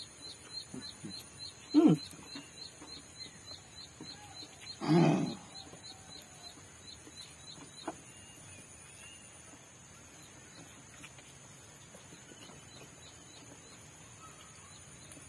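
A high chirp repeating about three times a second runs through the first six seconds, with two short, louder calls at about two and five seconds, the second the loudest. After that it goes quieter, with only faint clicks and mouth sounds from eating by hand.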